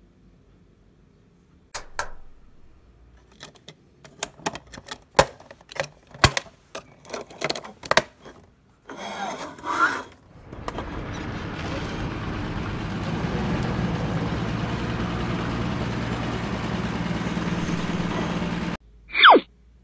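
Small plastic toy figures and playset pieces clicking and knocking as they are handled, then a steady engine-like hum that runs for several seconds and cuts off suddenly, followed near the end by a quick falling whistle-like tone.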